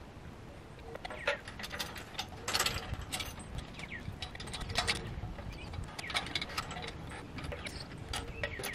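Hand work on metal truck hardware: a string of irregular metallic clinks and short rattles, loudest in a cluster a few seconds in.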